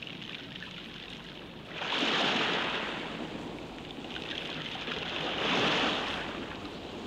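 Sea waves surging and washing, the rush of water swelling up twice, about two seconds in and again a few seconds later.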